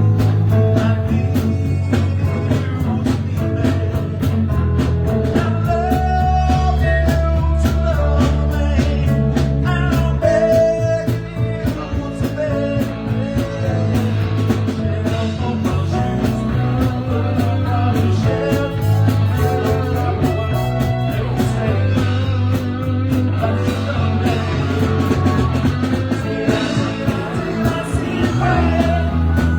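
Live rock band playing, with bass, guitar and a steady drum beat.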